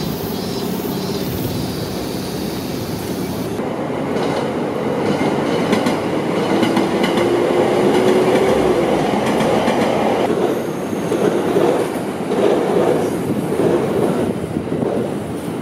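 A train running on rails, with a rising whine through the middle and a rhythmic clatter of wheels over rail joints in the second half.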